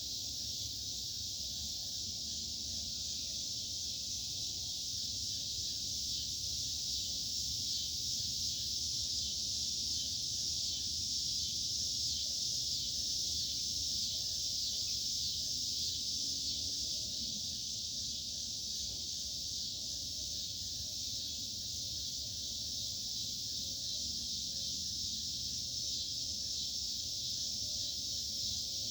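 A steady chorus of insects: a dense, unbroken high-pitched buzz that does not let up, with a low rumble underneath.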